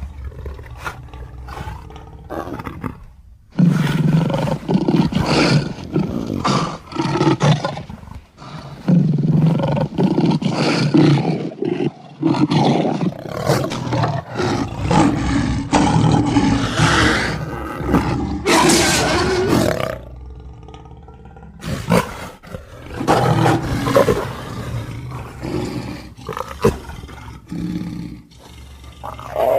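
Big-cat roars and snarls made as the voice of the extinct sabre-toothed Barbourofelis: a run of separate loud calls with short pauses, and a longer pause about twenty seconds in.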